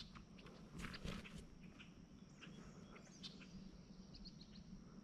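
Near silence outdoors, with faint scattered bird chirps and a faint steady high insect buzz.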